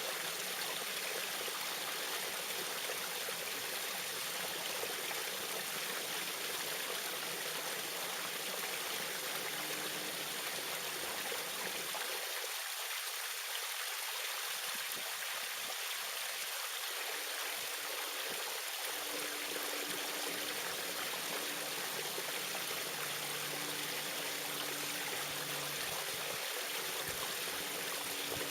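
Small waterfall: a steady, even rush of falling water.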